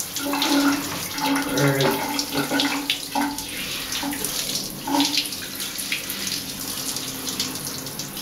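Water running steadily from a handheld shower head as a dog's fur is wetted during a bath.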